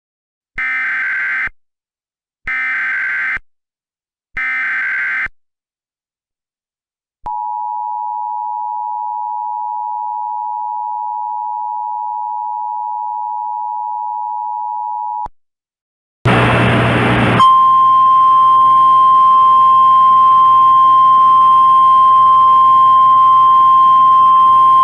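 Emergency Alert System broadcast alert: three short screeching data bursts of the EAS header, about a second each, then the two-tone EAS attention signal held steady for about eight seconds. After a brief burst of static, a single steady alert tone sounds over hiss to the end.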